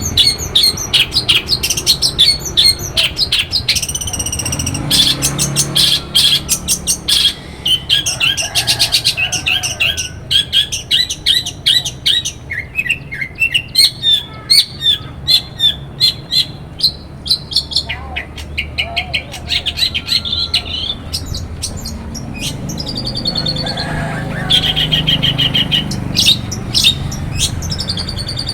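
Long-tailed shrike singing a fast, varied song of chirps, trills and rapid clicking rattles, with hardly a pause.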